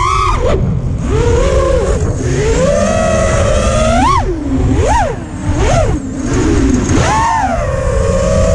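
ImpulseRC Apex FPV freestyle quad's brushless motors and propellers whining, the pitch rising and falling with the throttle. Several quick sharp punches come in the middle, then a steadier hum near the end.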